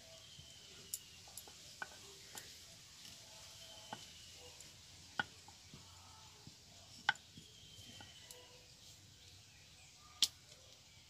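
Wooden rolling pin rolling dough thin on a round wooden rolling board, with a few sharp, scattered knocks of wood on wood, the loudest two about seven and ten seconds in.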